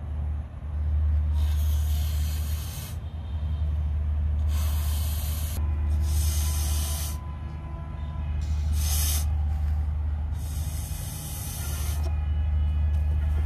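A rubber balloon being blown up by mouth: about five breathy, hissing blows, the first about a second in and the last ending near the end, over a steady low rumble.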